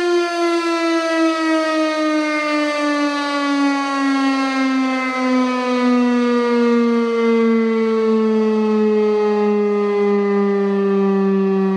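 Federal Signal STH-10 electromechanical fire siren sounding during a test. Its single loud, rich tone slides slowly and steadily down in pitch as the rotor winds down.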